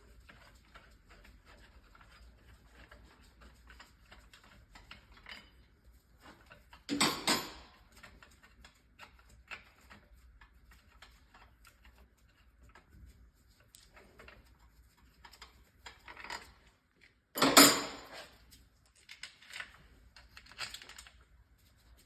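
Metal tools and gearbox parts handled on a workbench: light clicks and rattles, with two loud metallic clanks, one about seven seconds in and another about seventeen seconds in.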